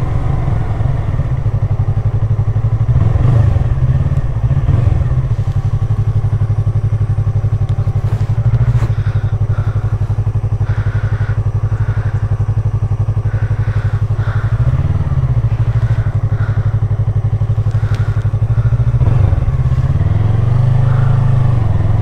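Motorcycle engine running at low road speed, its pitch dipping and climbing back a few times: a short change about three seconds in, one around the middle, and a longer one near the end.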